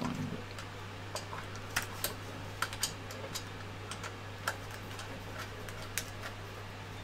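Scattered small clicks and ticks, a dozen or so at irregular intervals, from a hand screwdriver turning screws into a power supply's mounting. A steady low hum runs underneath.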